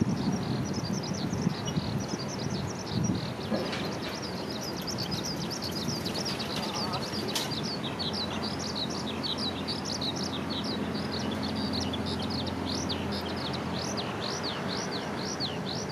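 Low rumble of a passing train dying away over the first few seconds, then small birds chirping rapidly and continuously.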